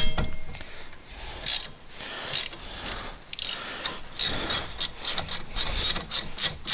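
Hand ratchet with a 7 mm hex bit clicking as it loosens a rear brake caliper slide-pin bolt on a 2017 Honda Civic. There is a sharp click at the very start, a few scattered clicks, then quick regular ratchet clicks, about five a second, over the last two and a half seconds.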